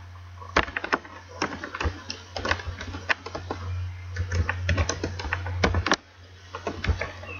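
Typing on a computer keyboard: a quick, uneven run of key clicks with a short pause near the end before the typing resumes, over a steady low hum.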